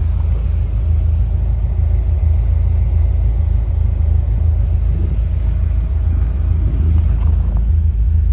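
1976 Chevrolet Corvette's stroked 350 V8 (383 cubic inches) idling with a steady low rumble.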